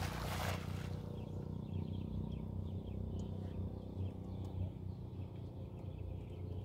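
A cast net landing on the water: a short splashing hiss lasting under a second at the start. A steady low rumble follows.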